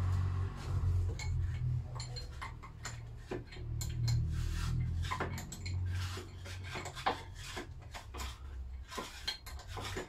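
Irregular metallic clinks and taps of hand tools and small steel parts being worked loose on a Lister D engine's crankcase during a strip-down, over a low hum.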